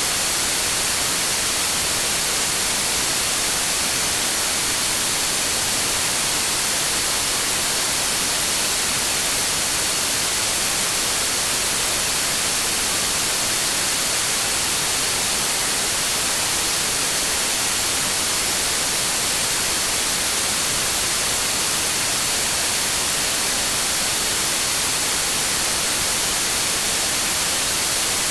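Steady, unchanging green noise: an even hiss, brightest in the upper range, with a thin high tone running through it.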